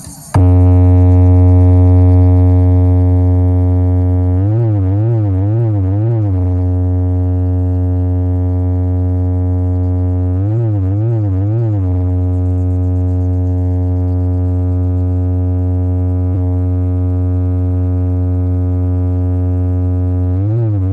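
Synthesized sub-bass drone from a DJ remix: one loud, low, steady note that cuts in abruptly at the start. Twice, for about two seconds each, it wavers quickly up and down in pitch, and it starts wavering again at the very end.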